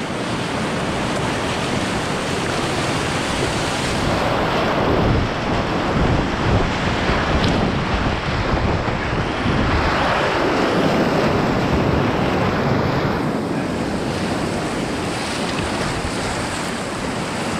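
Whitewater rapid rushing and splashing around a kayak as it runs through the waves. The sound swells in the middle stretch and eases near the end.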